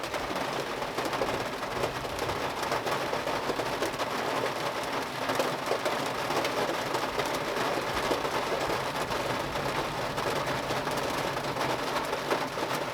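Steady rain from a severe thunderstorm overhead, a dense even patter of drops.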